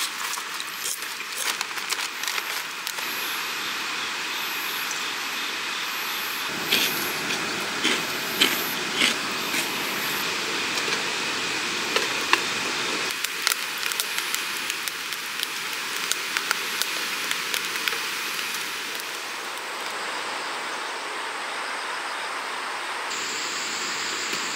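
Small wood-burning camp stove fire crackling, with scattered pops and snaps over a steady hiss.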